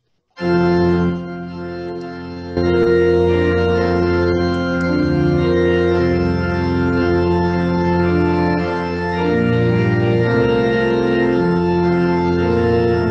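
Organ music as a postlude closing the service: held chords changing every second or so, starting suddenly just after the opening, softer at first and fuller from about two and a half seconds in.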